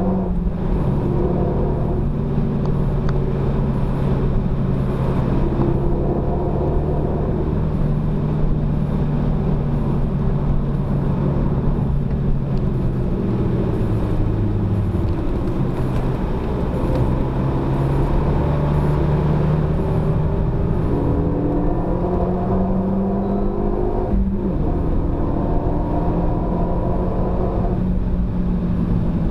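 Renault Mégane RS250's turbocharged 2.0-litre four-cylinder engine pulling hard on a race circuit, heard inside the cabin over tyre and road rumble. Its pitch climbs steadily and drops sharply twice, about halfway through and again near the end.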